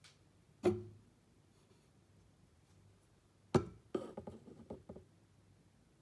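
Two sharp knocks about three seconds apart, the second followed by about a second of lighter rattling clicks: metal feeding tongs knocking against the terrarium as they are put in to feed an African bullfrog.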